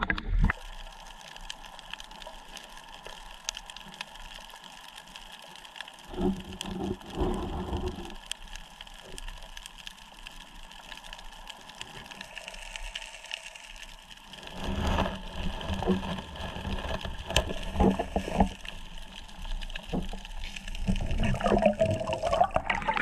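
Water sloshing and splashing around someone wading in shallow seawater, in bouts about six seconds in and again from about fourteen seconds on, over a steady high hum.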